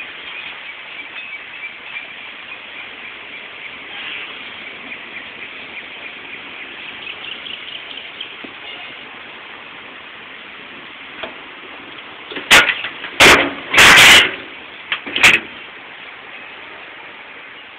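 Ford F-250 pickup cab door being handled and opened: a quick run of four or five loud metal clunks, one drawn out for about half a second, over a steady outdoor hiss.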